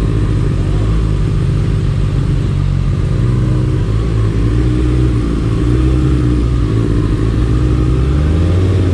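Sport bike engine running at low revs while the bike crawls along at walking pace. Its pitch wavers slightly as the throttle is held just off idle, and it rises briefly near the end.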